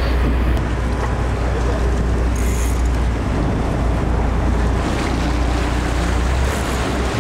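A boat at sea: a steady low rumble with wind on the microphone and the wash of water.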